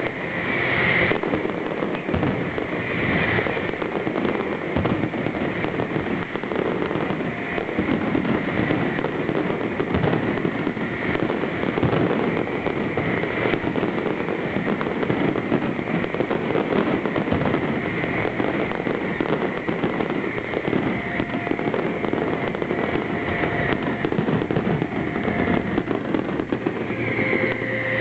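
Aerial fireworks display: a dense, unbroken run of bangs and crackling.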